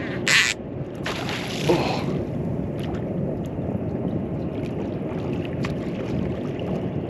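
Steady wash of wind and water noise around a small fishing boat at sea. Just after the start comes a short, loud rush of noise, and a second, longer one follows from about one to two seconds in.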